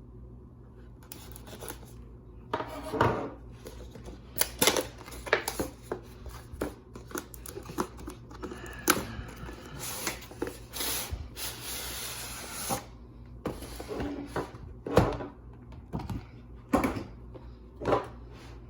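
Cardboard packaging being slit open with a pocket knife and handled: irregular scrapes, rubbing and sharp clicks and taps, with a longer scraping rasp a little past the middle.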